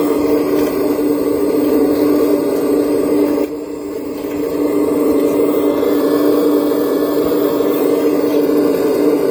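Radio-controlled Liebherr 970 scale model excavator running while it digs, a steady mechanical whine with a short dip in level about three and a half seconds in.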